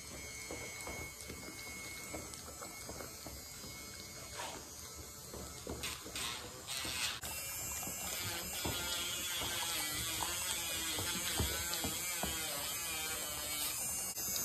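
A handheld Dremel rotary tool running steadily as it files a dog's nails, a high-pitched small-motor whir that grows louder and brighter about halfway through.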